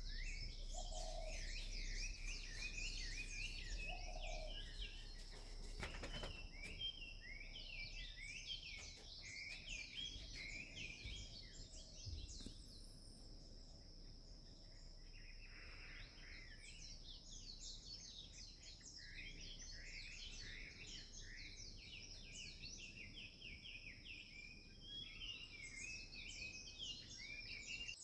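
Many birds chirping and singing at once in a dense morning chorus, with a steady high-pitched whine underneath and a low rumble.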